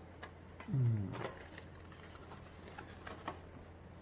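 Items from a boxed set being handled: a few faint clicks and light rustles of paper and packaging. About a second in there is a short voice sound that rises in pitch, and a steady low hum runs underneath.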